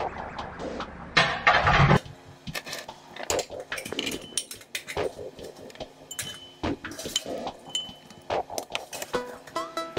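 Chopped vegetable pieces dropped by hand into a glass blender jar, a run of irregular knocks and clinks against the glass. There is a louder rustling stretch in the first two seconds.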